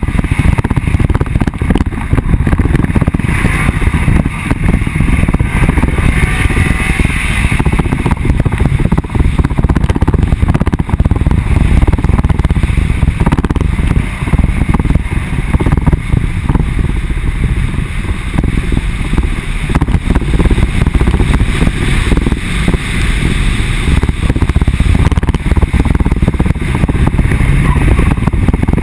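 Off-road vehicle driving fast over a rough dirt and gravel track: a steady, loud rumble of wind and wheels on dirt, with no clear engine note standing out.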